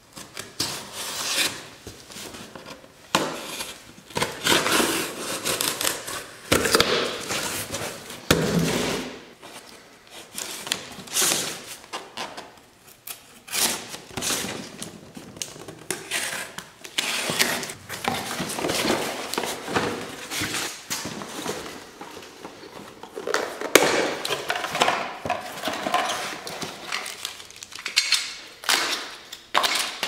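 Cardboard shipping boxes being opened by hand: packing tape slit with a knife and pulled off, and flaps pulled open. An irregular run of short rustles, tears and knocks.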